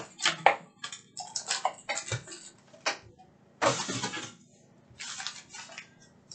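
Plastic trading card pack wrappers crinkling and rustling in the hands as packs are handled and opened, in short irregular crackles with one longer rustle a little over halfway through.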